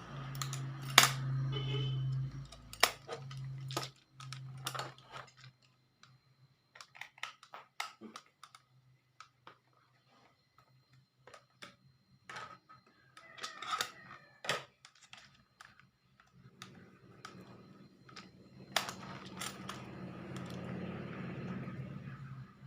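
Scattered sharp clicks and taps of plastic and small metal parts being handled, as batteries are fitted into the toy excavator's battery compartment. A low hum sits under the first few seconds, and a steadier hum with rustling returns in the last several seconds.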